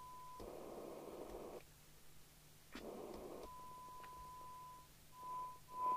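CB radio receiver's speaker playing a steady test tone that gives way twice to about a second of hiss, then cuts in and out a few times near the end.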